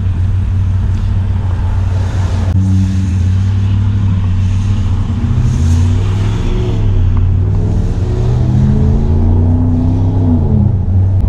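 Ram 1500 pickup's engine and Mopar cat-back exhaust running under way, heard inside the cab. The pitch climbs steadily as the truck accelerates, then drops sharply near the end.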